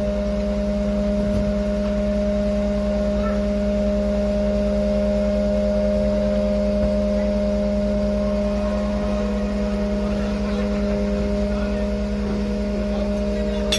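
Aerial ladder fire engine's engine running steadily, driving the ladder's hydraulics as the ladder slews round and extends; a constant, even-pitched hum.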